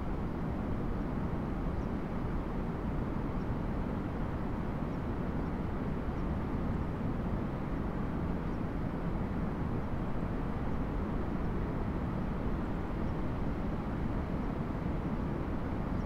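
Steady low outdoor background rumble, unchanging throughout.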